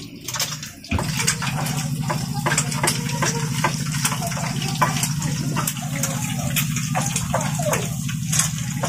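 An egg frying in hot oil in a nonstick pan: steady sizzling with many small crackling pops. A steady low hum joins it about a second in.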